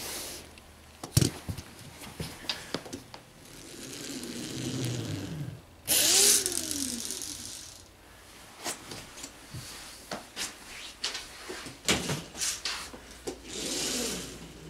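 Lego Technic Bungee Blaster, a rubber-band-powered toy dragster, being wound back and let go on a laminate floor several times. There is clattering plastic clicking while it is handled and wound. Each release brings a burst of wheel whir that falls in pitch as the rubber band unwinds.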